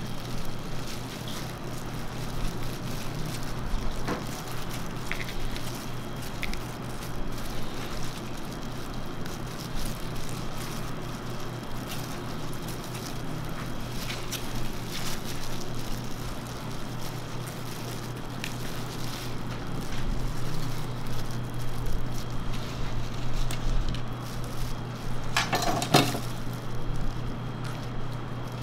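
Food-stall work sounds over a steady low hum: soft handling noises as a crepe is folded and rolled, and a short, louder clatter near the end.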